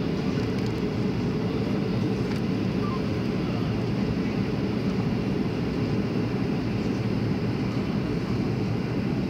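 Steady, deep cabin noise of a jet airliner on its landing approach: engines and rushing air heard from a passenger seat, unchanging throughout.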